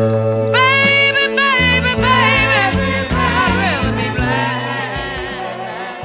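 Background song: a melodic line with wavering runs over a stepping bass line, beginning to fade out near the end.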